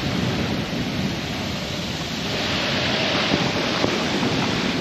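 Wind buffeting the microphone over a steady rush of sea water, aboard a sailing yacht under sail with no engine running. The rush swells a little about halfway through.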